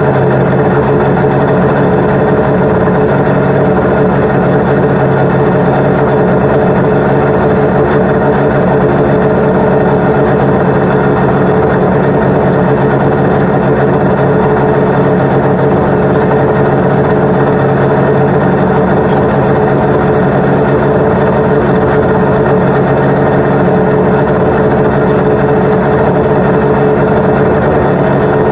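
1996 Arctic Cat ZRT 800 snowmobile's three-cylinder two-stroke engine idling steadily, running evenly now that its carbs are tuned and its idle is set.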